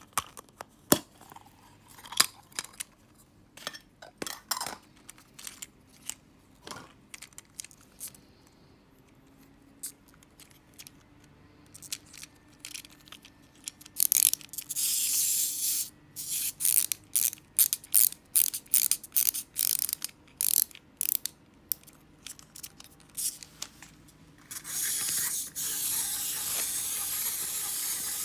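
Clicks and knocks of clear plastic dome packaging being handled, then the clockwork of a small wind-up toy soldier being wound and whirring in a series of short bursts about halfway through. Over the last few seconds the clockwork motor runs with a steady high whirr as the toy walks.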